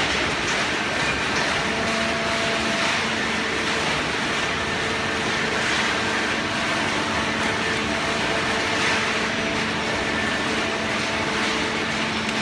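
Automatic horizontal hydraulic cardboard baler running: a steady machine hum over even mechanical noise from its motor and hydraulic pump.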